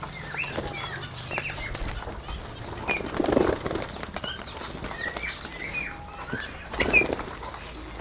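Indian ringneck parakeets flapping their wings as the flock flutters down to feed, with short chirps from the birds throughout. Two louder flurries of wingbeats come about three seconds in and near the end.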